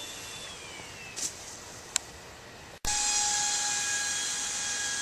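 Model airplane's motor and propeller: a whine falling in pitch over the first second, a short hiss and a click, then after an abrupt cut a steady, louder whine with a high hiss.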